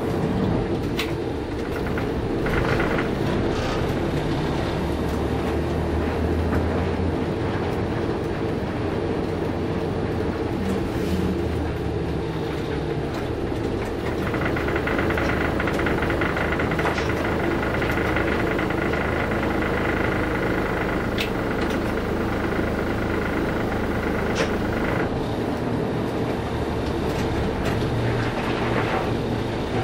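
Large bus's diesel engine running under way, heard from inside the passenger cabin, its low drone rising and falling with the throttle. A steady high whine joins in for about ten seconds midway, with a few light clicks and rattles.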